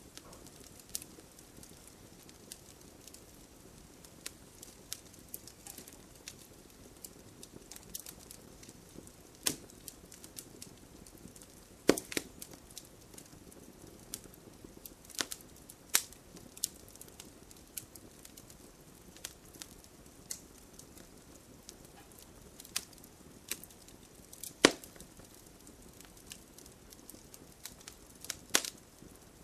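Wood fire burning with a steady low hiss and frequent sharp crackles and pops, a few of them much louder than the rest.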